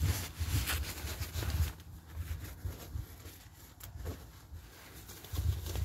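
Nylon carry bag of a pop-up tent rustling and scraping as it is handled and opened. There are irregular rustles and low rumbling bumps on the microphone, strongest in the first second and a half and again near the end.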